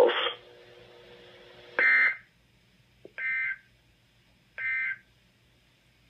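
NOAA Weather Radio SAME end-of-message data bursts: three short buzzy digital squawks about a second and a half apart, the first the loudest, marking the end of the Special Marine Warning.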